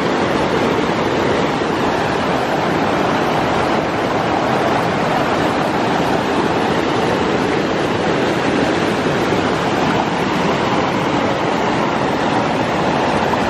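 Fast mountain stream rushing over rocks close by: a loud, steady roar of white water.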